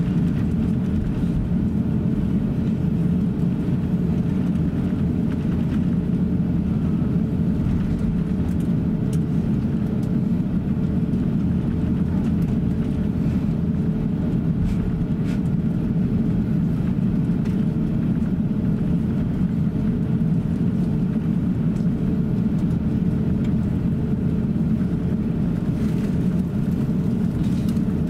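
Airbus A350-900 cabin noise while taxiing: a steady low rumble from the Rolls-Royce Trent XWB engines at taxi power and the wheels rolling on the taxiway, with a faint steady hum above it.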